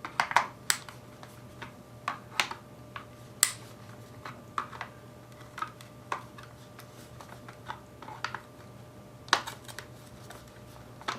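Irregular sharp clicks and taps of plastic parts and small screws being handled as a cordless drill's case is taken apart, with a few louder knocks near the end and a faint steady hum underneath.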